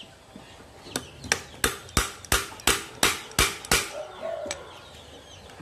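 A chisel striking the metal end of a racing motorcycle muffler: about nine sharp, ringing metal blows, roughly three a second, working a part loose so the muffler can be taken apart.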